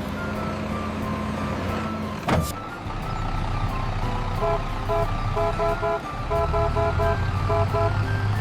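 Cartoon vehicle engine running steadily under a background tune of short plinking notes, with a sharp hit about two seconds in.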